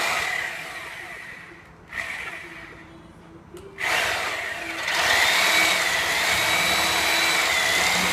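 Porter-Cable Tiger Saw reciprocating saw cutting a nail between two pallet boards. It gives two short bursts that wind down, then runs steadily for about four seconds with a high, wavering whine.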